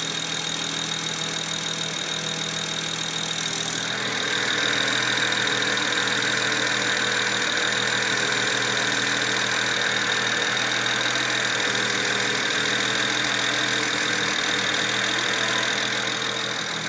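BMW 335i's N54 twin-turbo straight-six idling roughly, a suspected misfire that throws no code. A higher, steady rushing sound joins about four seconds in and stays, making the whole a little louder.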